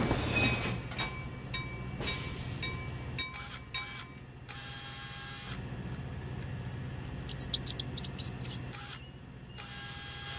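Large-scale model train rolling along its track: a steady low rumble with scattered clicks, and a quick even run of clicks about seven seconds in.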